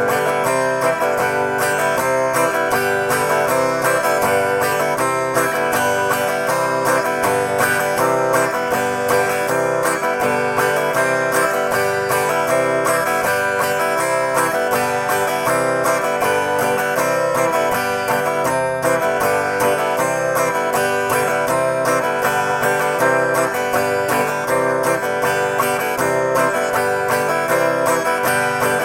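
Guitar strummed in a steady, fast run of down strums, playing the open-up strum: chord strums alternating with open-string strums that give the fretting hand time to change chord shape.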